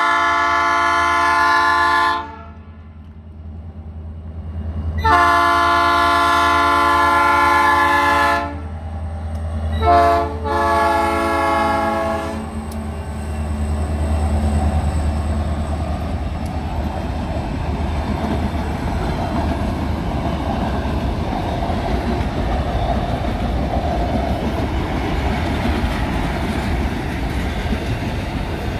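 Diesel freight locomotive sounding its horn in the level-crossing pattern: long, long, short, long. Then the locomotive's engine and the freight wagons roll past on the rails with a steady rumble and clacking of wheels over the track.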